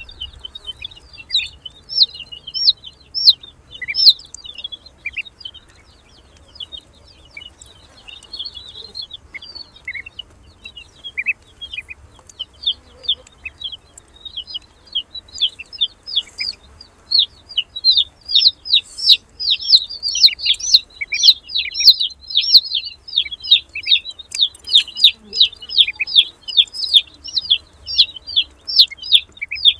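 Newly hatched ducklings peeping in short, high calls while they feed. The peeps are scattered at first, then come fast and near-constant from about halfway through.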